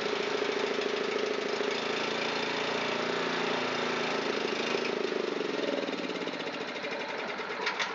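Honda GX270 single-cylinder engine running at full speed on full choke, partly choked further by a hand over the carburetor throat to pull dirt through clogged jets. It winds down and fades over the last couple of seconds.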